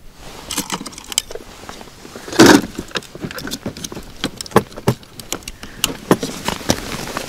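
Scattered clicks, knocks and crunches of broken ice and fishing gear being shifted beside a fresh ice hole, with one louder crunch about two and a half seconds in.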